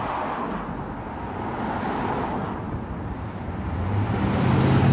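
City street traffic: the steady rush of cars going by, with a vehicle's engine hum growing louder near the end as it approaches.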